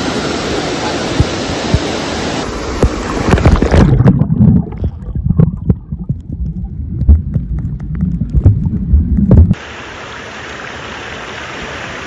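Clear mountain stream running over rocks, a steady rush of water. About four seconds in, the sound turns muffled as the camera goes underwater: low rumbling and irregular knocks of the current for about five seconds. Then it comes back up to a quieter, steady rush of the stream.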